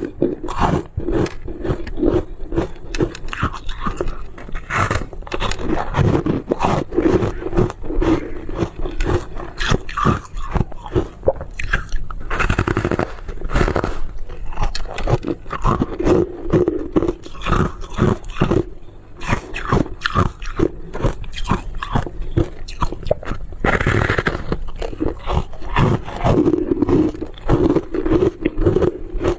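Close-miked biting and chewing of crunchy foam ice: a dense, irregular run of crisp crunches and crackles that keeps going throughout.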